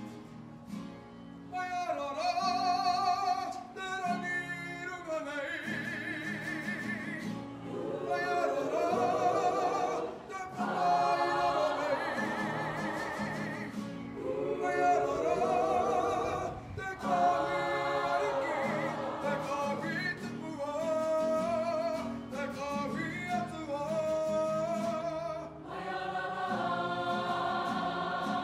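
Kapa haka group, men and women together, singing a Māori waiata in unison as a choir. The sung phrases are a few seconds long, with short breaks between them.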